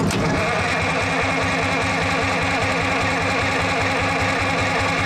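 Starter motor cranking a cold Detroit Diesel two-stroke engine, with a fast, even beat of compression strokes; the engine turns over but does not catch.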